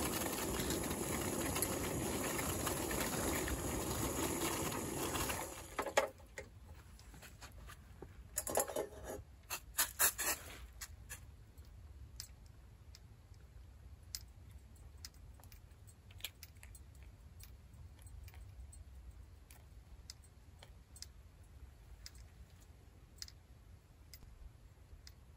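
Butane cassette stove burner hissing steadily under a pot of near-boiling water, cut off abruptly about five seconds in as the gas is turned off. Then a run of metallic knocks and clinks as the stainless pot is lifted and handled, followed by a few faint ticks.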